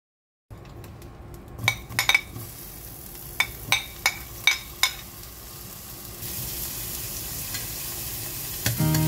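Sliced ginger frying in hot oil in a stainless steel pan: a sizzle that grows louder about six seconds in. Before that, several sharp clicks of a metal spoon against the plate and pan as the slices are pushed in.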